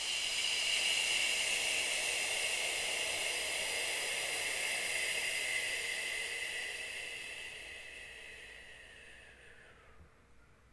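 A woman's long 'shh' exhale through the lips, held for about ten seconds, then fading and dropping slightly in pitch over the last few seconds. It is a pranayama breath meant to clear the lungs.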